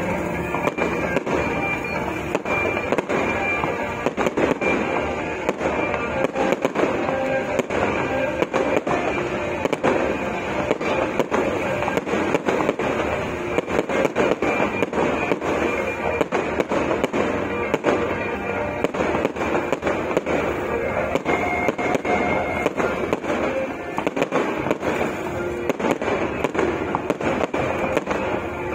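Aerial fireworks bursting in quick succession, a dense run of bangs, with music playing alongside.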